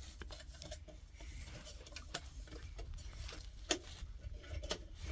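Faint handling noises: scattered small clicks and taps over a light rustle, with one sharper knock about three and a half seconds in.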